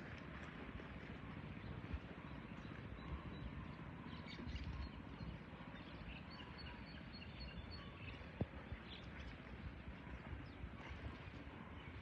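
Faint outdoor ambience: a steady background hiss with small birds chirping now and then, and a single sharp click about eight seconds in.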